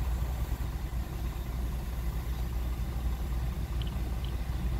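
Steady low rumble of a car's engine and road noise heard from inside the cabin, moving slowly in traffic.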